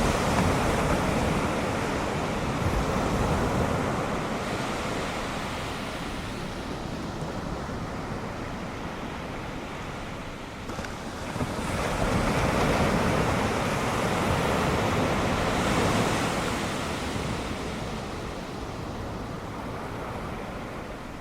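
Ocean surf: waves breaking and washing ashore as a steady rushing wash, which surges at the start, ebbs, and swells again about halfway through before fading.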